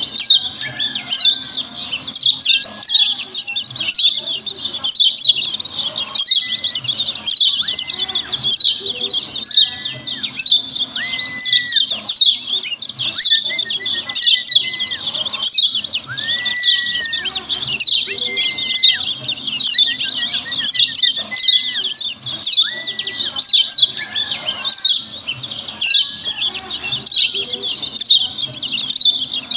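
Yellow white-eye (kecial kuning) calls: a rapid, unbroken stream of sharp, high 'ciak' chirps, several a second. A lower, level whistled note recurs every second or two. This is the 'ciak' call used as a lure to provoke other white-eyes into answering.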